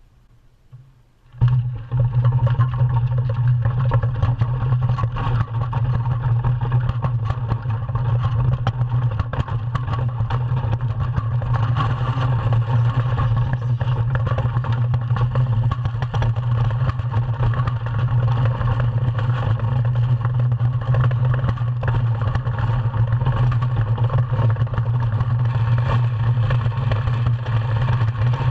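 DN iceboat's steel runners running over hard ice at speed, a loud, steady low rumble with a hiss over it, carried through the hull. It starts suddenly about a second and a half in, as the boat gets moving.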